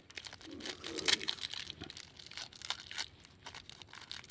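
Small clear plastic toy wrapper crinkling and tearing as fingers pick it open, an irregular run of short crackles that is loudest about a second in.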